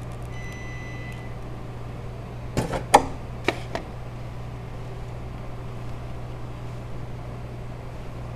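Mitsubishi 2.4-litre four-cylinder engine running steadily, with a brief high beep near the start and a few sharp clacks about a third of the way in.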